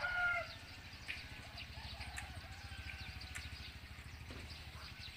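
The end of a rooster's crow in the first half-second, then scattered small bird chirps over a low steady hum.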